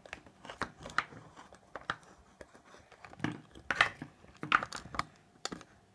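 Scattered light clicks and rustles: handling noise from a phone held in the hand, several louder knocks near the middle.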